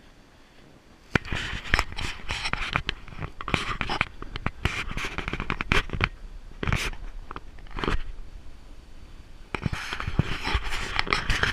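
Snowboard scraping and sliding over packed, groomed snow in irregular scratchy bursts with sharp clicks, starting about a second in.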